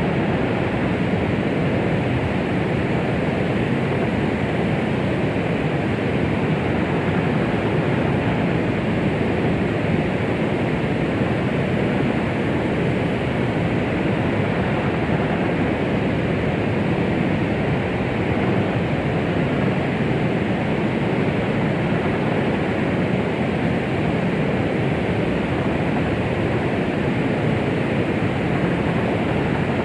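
Steady white noise for soothing a baby, meant to imitate the sound of the womb: a constant, even rushing hiss that never changes, its weight in the lows and mids with little high treble.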